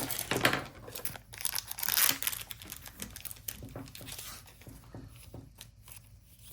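Foil trading-card pack wrapper being torn and crinkled for the first two seconds or so, followed by fainter clicks and rustles of cards being handled.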